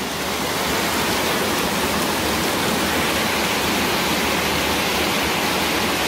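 Cave waterfall and stream: a large volume of water cascading and rushing over rock inside a cave, a loud steady noise with no break.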